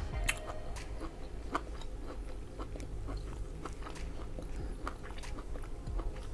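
A person chewing food with the mouth closed, with irregular crisp clicks and small crunches.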